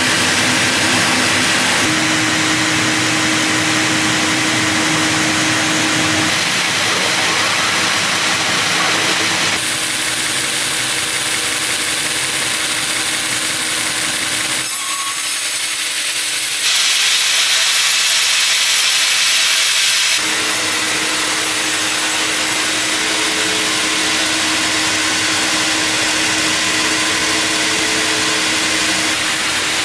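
Large log band sawmill running, its blade sawing through a log on the carriage: a steady sawing hiss over a machine hum. The sound shifts abruptly several times and is loudest for a few seconds a little past halfway.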